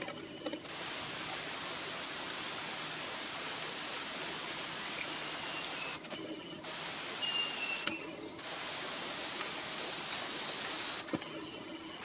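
Steady hiss of rainforest ambience. Two short high bird whistles come about halfway through, and a rapid string of high bird notes follows from about eight seconds in.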